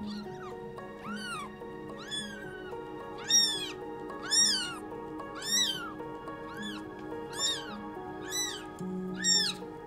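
Newborn kitten mewing, a high, arching cry repeated about once a second, over background music with sustained notes.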